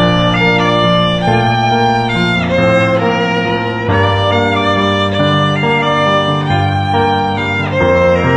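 Instrumental music with a violin lead over sustained chords, its notes changing about every second.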